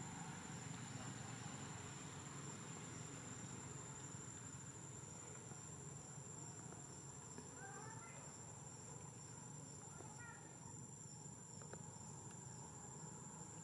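Steady, faint high-pitched drone of forest insects, with two short faint chirps about eight and ten seconds in.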